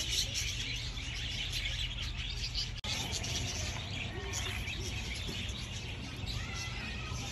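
Many small birds chirping quickly and continuously in a busy background chorus over a steady low rumble, with a brief break about three seconds in.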